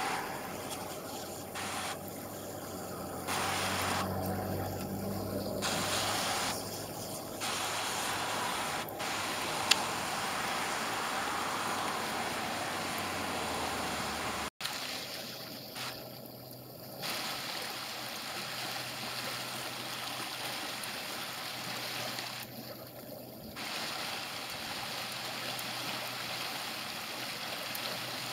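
Creek water flowing steadily through an open gap in thin ice, with one sharp click about ten seconds in.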